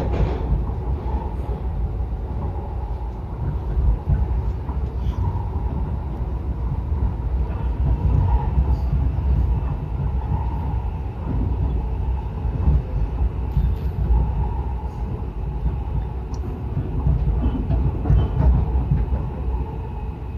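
Yokosuka Line electric commuter train running between stations: a steady low rumble of wheels on rail that swells and eases every few seconds, with a faint wavering whine. A short knock sounds right at the start.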